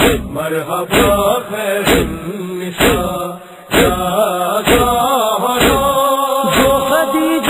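Voices chanting a noha, a Shia lament, with a steady thump about once a second as the beat, and a short drop in level about halfway through.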